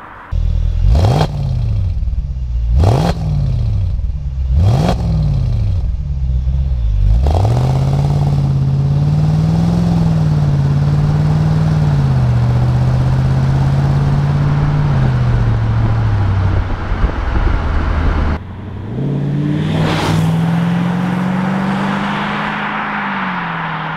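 Mercedes-AMG SLK55 (R172) 5.5-litre V8 through a custom stainless steel valved exhaust with the exhaust valves closed. Three quick revs about two seconds apart, then the engine running steadily under light throttle as the car drives, and near the end the revs climbing as the car approaches.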